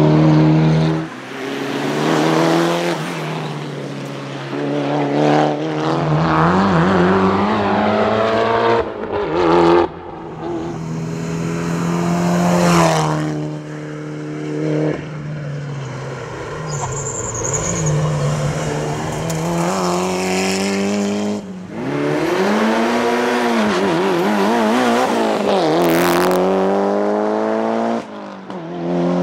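Mitsubishi Evo IX RS's turbocharged 2.0-litre four-cylinder engine at full stage pace, revs climbing hard and dropping back again and again through gear changes and braking. A brief high squeal comes about halfway through.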